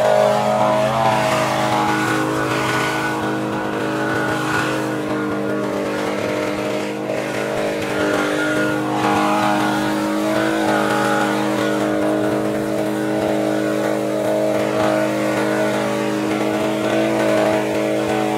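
Small petrol engine of a garden power tool running steadily at high speed, its pitch wavering slightly now and then.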